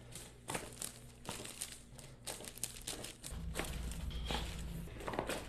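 Rustling and crinkling of a patient being handled on a chiropractic treatment table, broken by a series of short sharp clicks and crackles. A low steady hum starts a little over three seconds in.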